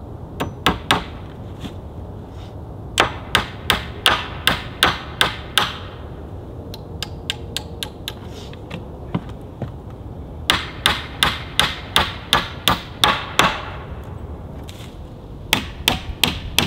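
Hammer nailing pallet boards on a wooden table frame, in runs of quick strikes about three a second with pauses between the runs.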